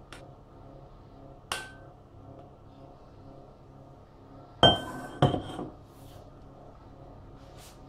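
Stainless steel mixing bowl clanking: a light ringing tap about one and a half seconds in, then two loud ringing clanks about half a second apart near the middle, as the bowl is handled with a spatula and set down on the counter.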